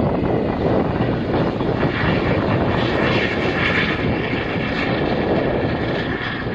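Air ambulance helicopter taking off and flying low past, its rotor and turbine noise loud and steady, with a high whine that swells about three seconds in and then eases.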